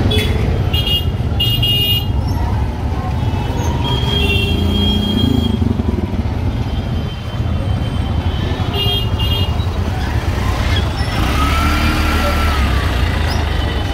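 Busy street traffic: engines rumbling steadily, with several short vehicle horn toots.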